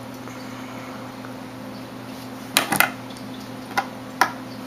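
A few sharp metallic clicks and taps from small hand tools and the cord being handled: a quick pair about halfway through, then two single clicks near the end. A steady low hum runs underneath.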